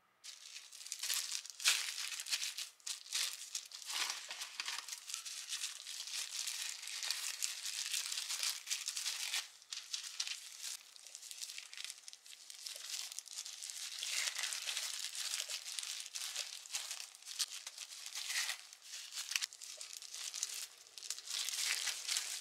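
Thin disposable plastic gloves crinkling and rustling with many small crackles as gloved hands knead and shape cookie dough around a marshmallow.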